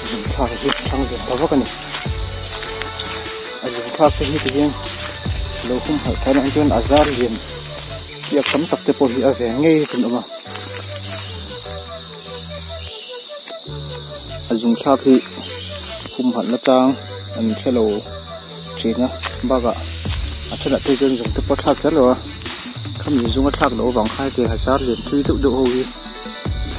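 A loud, steady, high-pitched drone of insects in the forest. Underneath it are fainter, lower sounds that rise and fall in pitch.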